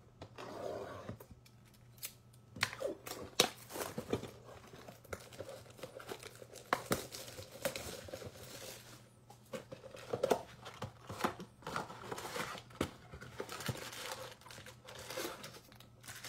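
Packaging of a retail mega box of trading cards being torn open and handled: irregular tearing, crinkling and rustling, with a few sharper crackles.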